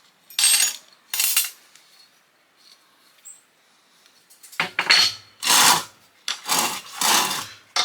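Small metal parts of an old fuse box clattering and clinking as it is taken apart: two short rattles near the start, then a run of about five louder clatters from just past halfway.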